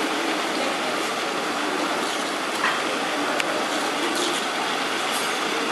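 Steady rushing splash of a water-jet spout pouring a stream into a swimming pool, with a couple of brief clicks a few seconds in.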